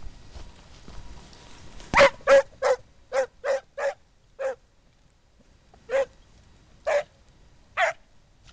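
A scent hound giving tongue, barking as it works a hare's trail. It gives a quick run of seven short barks starting about two seconds in, then three more spaced about a second apart.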